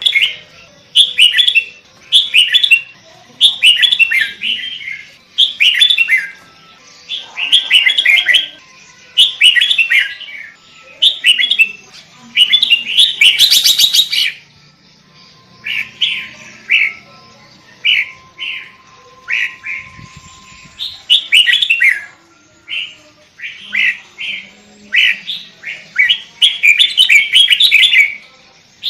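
Sooty-headed bulbul singing: short, bubbly whistled phrases repeated one after another with brief gaps. A harsh buzzy note comes about halfway through.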